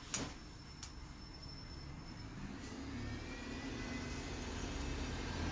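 Two sharp clicks in the first second, then an engine running and slowly growing louder, with a faint rising whine in the middle.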